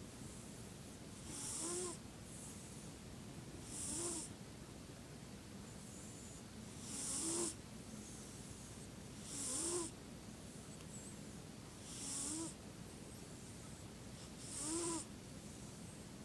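Regular snoring: six snores about every two and a half seconds. Each is a short breath with a pitched tone in it.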